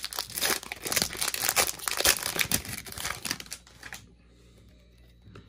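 Foil wrapper of a Panini Prizm football trading-card pack crinkling and tearing as it is ripped open and the cards are pulled out, dense crackly rustling for about three and a half seconds.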